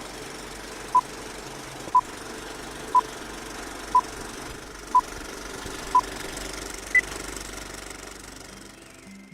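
Electronic countdown beeps: six short beeps at the same pitch, one second apart, then a seventh, higher beep. A steady hum of background noise runs beneath them and fades near the end.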